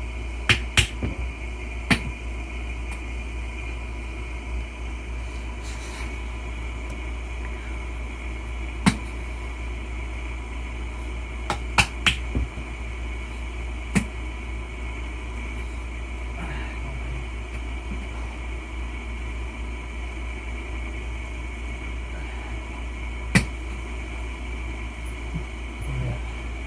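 Sharp, scattered clicks and knocks of a screwdriver being worked between a tire and its wheel rim to pry the tire off by hand, the metal tip striking the rim's lip. A steady low hum runs underneath.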